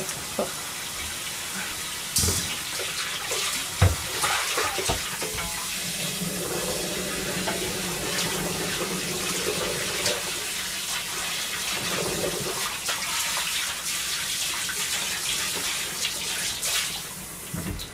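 Frying pan of cabbage and bean sprouts in water boiling on a gas stove, with a steady bubbling hiss. A couple of sharp knocks near the start from the metal strainer against the pan.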